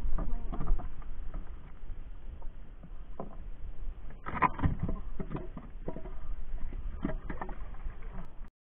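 Shell-encrusted chunks of rock being set down in a small wooden boat: a string of knocks and scrapes against the hull and against each other, loudest about four and a half seconds in, with water dripping off them.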